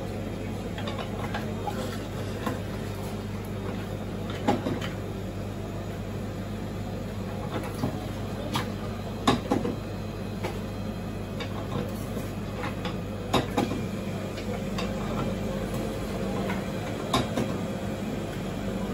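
Metal clanks and knocks from a manual lever juice press as fruit halves are set into its steel cup and pressed, a few sharp knocks spaced several seconds apart, the loudest about nine seconds in. A steady hum runs underneath.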